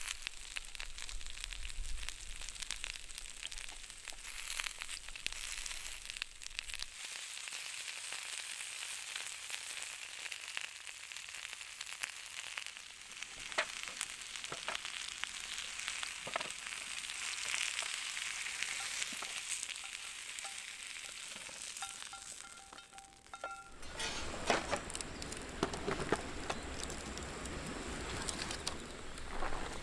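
Food sizzling in a pan over a wood fire, with scattered crackles and pops. About 24 seconds in the sound turns fuller and busier, with denser pops.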